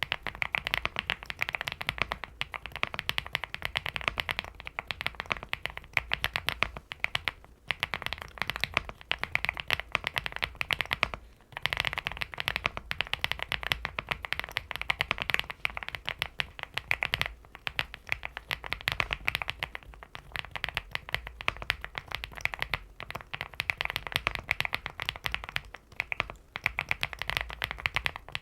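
Fast, continuous typing on a mechanical keyboard (LEOBOG HI75 with factory-lubed Owlab London Fog linear switches), a dense run of key clacks with a soft low thock beneath, broken by a few brief pauses.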